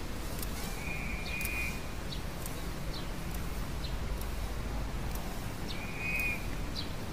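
Outdoor background: a steady low rumble with small birds chirping. Short high calls come about once a second, with two brief buzzy trills, one about a second in and one about six seconds in.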